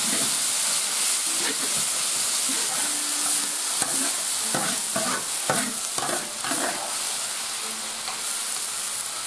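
Shredded celtuce and meat sizzling in a large wok, with a metal spatula stirring and scraping against the wok. A run of sharper scraping strokes in the middle comes as the food is lifted out onto a plate.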